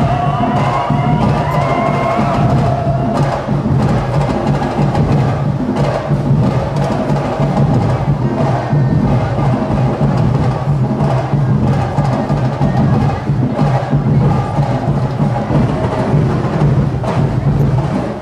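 Festival drum corps playing a loud, driving percussion rhythm on drums and wood-block-like percussion, steady throughout.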